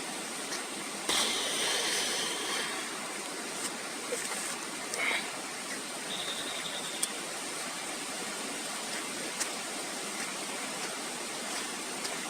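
Steady rush of water from the stream and pools below a jungle waterfall, with a louder stretch about a second in and a few faint clicks.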